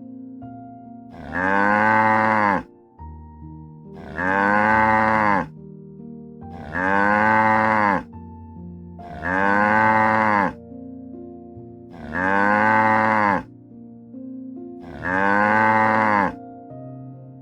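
A cow mooing six times at even intervals, each moo about a second and a half long, rising and then falling in pitch. The calls are nearly identical. Faint music plays between them.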